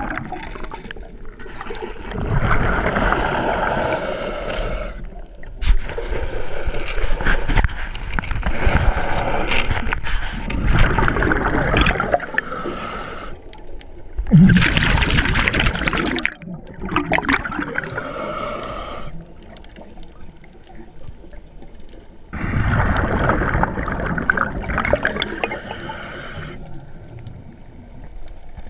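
Underwater bubbling and gurgling of a scuba diver's breathing through the regulator, exhaled bubbles coming in bursts of a few seconds with quieter gaps between breaths.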